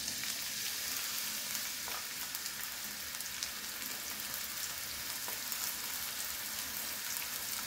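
Diced onion sizzling in hot oil in a nonstick frying pan: a steady frying hiss with small scattered crackles.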